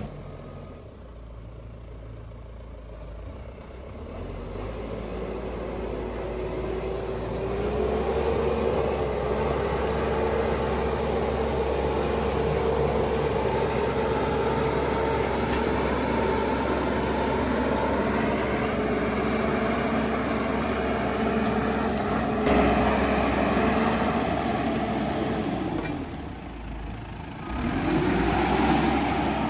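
Diesel engine of a heavy work machine running. It builds up over the first several seconds and then holds steady under load. Near the end it briefly drops off, then picks up again.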